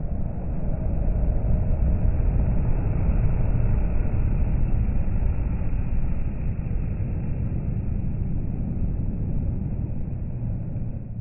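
Mercedes-Benz Actros articulated lorry passing at motorway speed: a steady low rumble of engine and tyres that swells as it comes alongside and slowly fades as it pulls away.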